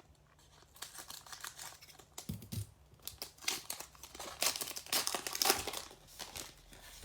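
Trading card pack wrapper being torn open and crinkled by hand: irregular crackling, loudest about five seconds in.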